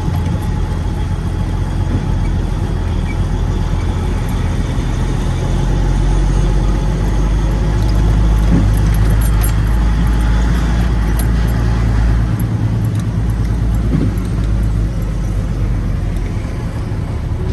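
Peterbilt semi-truck's diesel engine running steadily at low revs, a little louder in the middle.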